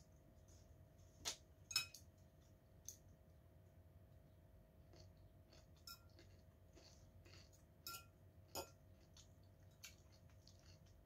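A metal fork clinking against a ceramic bowl several times while food is picked up, the loudest clink about two seconds in, with softer clicks between. Underneath is near silence with a faint steady hum.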